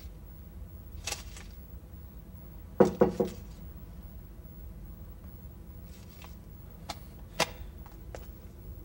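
Three quick knocks on a door about three seconds in, over quiet room tone, with a soft rustle before them and a single sharp tap near the end.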